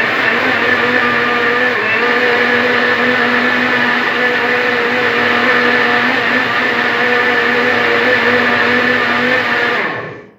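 Countertop blender motor running steadily while blending a banana, ice cream and protein shake with milk, then switched off near the end and winding down.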